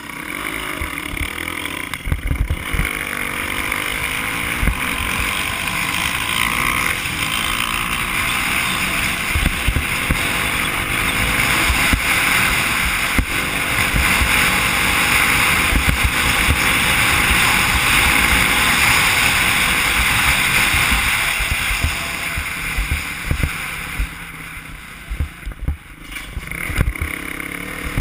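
Kawasaki KLX300 dirt bike's single-cylinder four-stroke engine running under way on a gravel track, heard from a helmet camera with wind rushing over the microphone and frequent low thumps from the rough ground. The sound drops briefly a few seconds before the end, then rises again.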